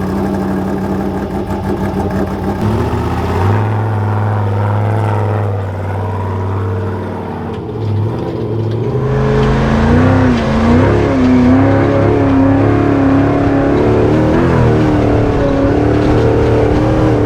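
Off-road truck's engine running and revving, its pitch holding, then stepping and wavering from about halfway in.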